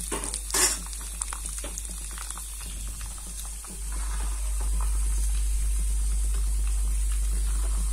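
Thick sweet pongal bubbling on a low simmer and being stirred with a wooden spatula: scattered small pops and soft scraping, with one louder knock about half a second in. A steady low hum comes up about four seconds in and stays the loudest sound.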